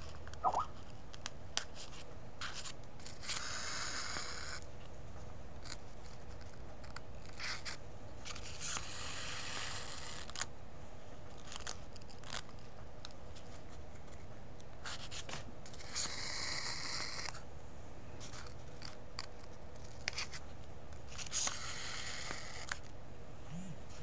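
Thread being drawn through cloth while hand sewing a running stitch: four drawn-out scratchy pulls, each a second or two long and about five or six seconds apart, with small clicks and rustles of the needle and fabric being handled between them.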